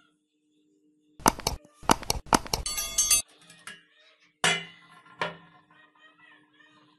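Rusty iron pan clanking as it is handled. About a second in there is a quick run of sharp metallic clanks, then two single knocks that ring on briefly.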